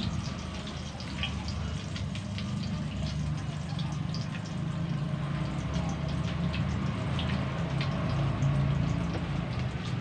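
Eggs frying in hot oil in a wok, with scattered sharp pops and crackles over a steady low hum.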